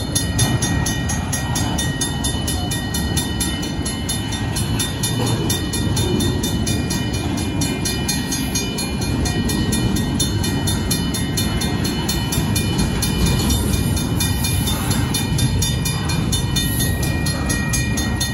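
Double-stack intermodal freight train rolling through a grade crossing: a steady rumble of wheels on rail, with the crossing's warning bell ringing in fast, even strikes.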